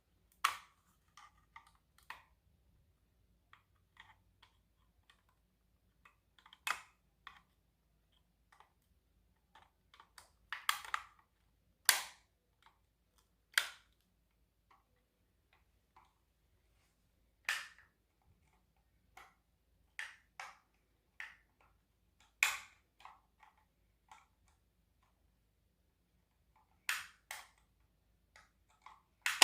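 Plastic clicks, snaps and taps from handling a First Alert carbon monoxide alarm while changing its 9-volt battery: the battery compartment being worked open and shut and the battery being pulled and fitted. They come singly or in short clusters with quiet gaps, the sharpest about twelve seconds in.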